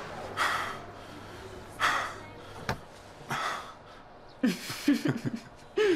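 A man puffing out three sharp breaths, about a second and a half apart, as he exercises his arms. From about four seconds in come a few short voiced sounds of effort.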